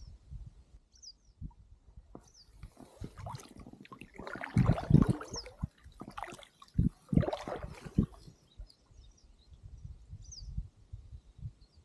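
A packraft paddle being handled and dipped into the water: a few seconds of splashing, knocks and rustling, with two louder bursts in the middle. A bird gives short high chirps now and then.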